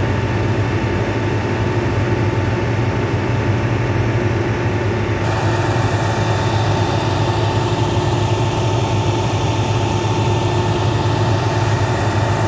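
Engine of a sewer-jetting truck running steadily at constant speed, with a low hum and a steady whine. The truck powers its pump and hose reel to clear a blocked drain. About five seconds in the sound takes on a sharper, hissier edge.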